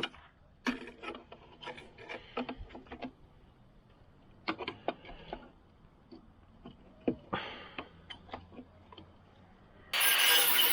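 Irregular metal clicks, taps and short scrapes as cut-out pieces of rusted car body steel are worked loose and lifted away by hand. Music starts near the end.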